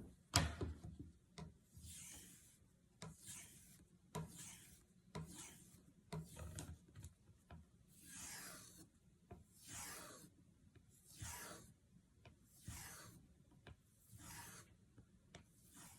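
Knife blade being drawn along a strop in slow, faint strokes, a dozen or so about a second or more apart, each a soft rubbing hiss, with light clicks between strokes. This is the final stropping stage that finishes the edge of a Victorinox chef's knife after the stone.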